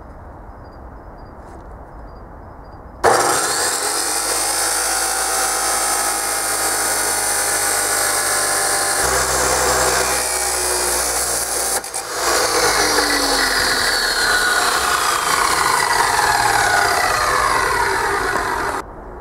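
DeWalt abrasive chop saw starting up about three seconds in and cutting through a steel shaft, the wheel grinding steadily with a brief dip partway through. The sound stops suddenly near the end.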